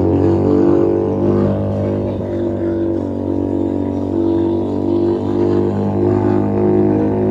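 Keeway SCR 250 motorcycle with a Rez Speed aftermarket exhaust, running under way at a fairly steady throttle with a deep, bassy exhaust drone whose pitch wavers slightly.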